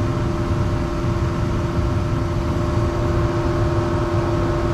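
Gas furnace running, its blower and burner making a steady hum over a low rumble. The furnace is running hot, close to the point where a limit switch that keeps overheating opens and shuts it off.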